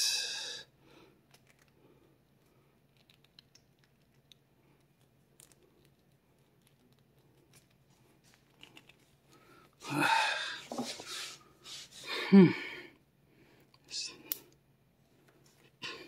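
Faint, sparse clicking of a combination cable bike lock's number dials being turned one notch at a time by hand. Two loud breathy vocal sounds break in, about ten seconds in and again near twelve seconds, the second the loudest.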